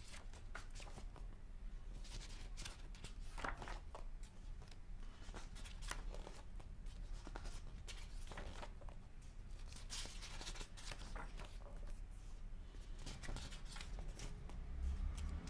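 Paper pages of a paperback book being turned by hand, a short swishing rustle about every two seconds, over a low steady hum.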